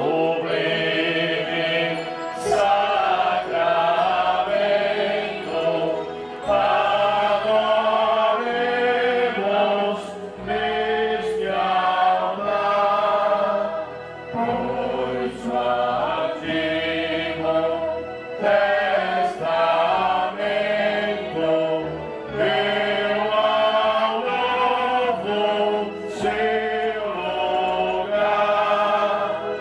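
Slow hymn sung by a group of voices in long phrases over sustained low instrumental accompaniment.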